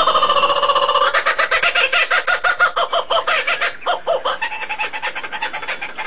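Fowl calling: a rapid, even run of clucking pulses, several a second, with a longer held call in the first second, easing off in the second half.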